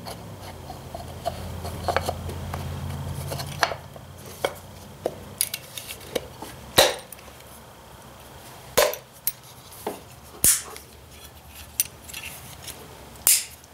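Small metal parts of a Ford 2N distributor clinking and tapping as they are handled and fitted, about fifteen sharp clicks at irregular intervals. A low steady hum sounds under the first four seconds or so.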